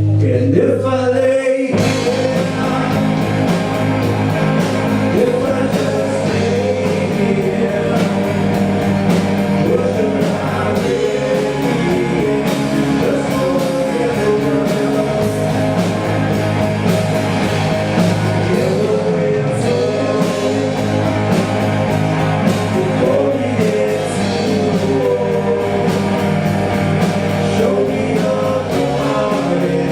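A rock band playing live with a singer: a wavering sung melody over guitar, bass and steady drums.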